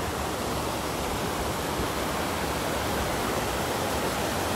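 River water rushing steadily over a low stone weir and rocky rapids.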